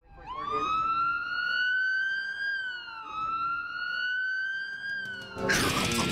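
A siren wailing: its pitch climbs slowly, dips and climbs again about halfway through, then falls off. Near the end, loud music with electric guitar cuts in over it.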